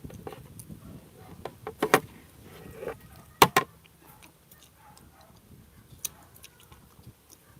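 Rambutan being handled and its flesh pulled away from the seed: a few sharp clicks, the loudest a quick pair about three and a half seconds in, among faint small crackles.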